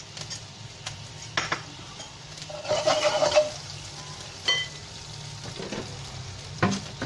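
Metal spoon stirring cornflour slurry in a ceramic bowl, with light clicks against the bowl, then a few separate kitchenware sounds: a brief rustle about three seconds in, a ringing clink about a second later, and a knock near the end. A low steady hum runs underneath.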